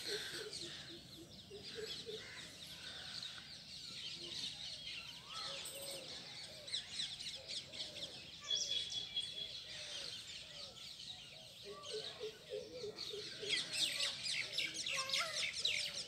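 Many small birds chirping and twittering at once in a dense, continuous chorus, with lower calls mixed in near the start and again near the end, and one short held whistle about halfway through.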